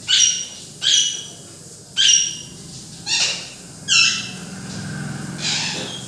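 Alexandrine parakeets squawking: five loud short calls about a second apart, each falling slightly in pitch, and a weaker one near the end.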